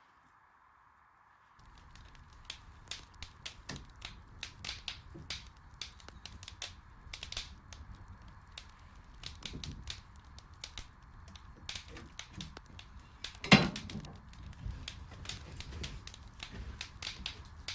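Dry limb-wood brush pile being handled and covered: irregular crackling and snapping of dry sticks, with one loud crack about three quarters of the way through.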